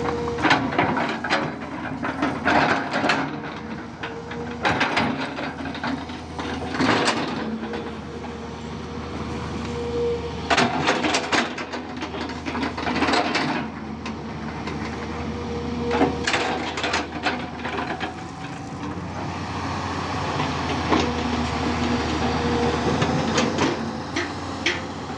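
Diesel engine and hydraulics of a Tata Hitachi 200 Super hydraulic excavator running steadily with a held whine, under frequent irregular metallic clanks and knocks.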